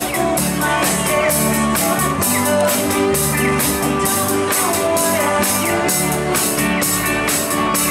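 Live band playing: electric guitars and a drum kit keeping a steady beat, with a woman singing. The music cuts in abruptly at the start.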